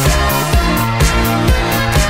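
Background electronic dance music with a steady kick-drum beat and sustained synth chords.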